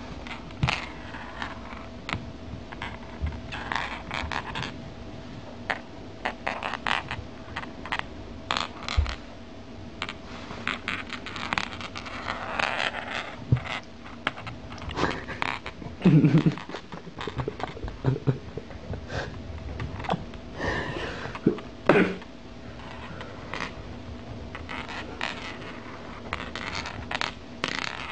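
A toy being dangled and swatted at by a cat's paw from inside a jacket sleeve: scattered clicks, scrapes and fabric rustles, with two louder low knocks past the middle.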